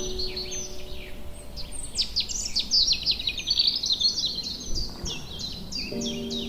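A dense chorus of small birds chirping and twittering in rapid, high, quickly falling notes, busiest from about two seconds in.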